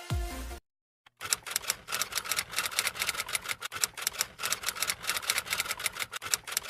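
The tail of an electronic music intro cuts off, and after a short gap comes a fast, uneven run of typewriter-style key clicks, several a second, that stops abruptly at the end.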